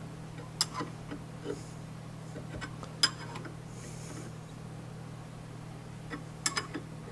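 Wrench clicking against the hex head of the steel screw on a home-made aluminium Glock rear sight pusher as the screw is tightened by hand: a handful of scattered short metallic clicks, a close pair near the end, over a steady low hum.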